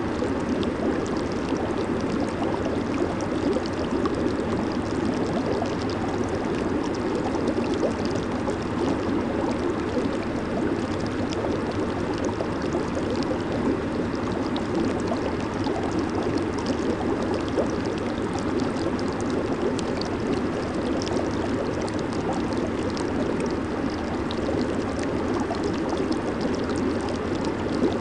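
Jacuzzi water churning and bubbling under its jets and air blower, a steady dense rush with fine fizzing from bursting bubbles.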